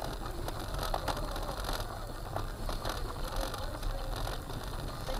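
Inside a moving car: steady low road and engine rumble, with irregular clicking and rattling from the interior.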